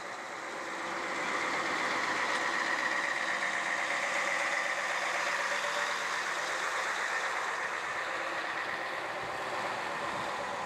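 Heavy truck engine idling steadily, slightly louder from about a second in.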